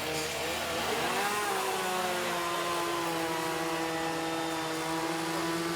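Chainsaw running, its pitch wavering up and down for the first couple of seconds, then holding steady.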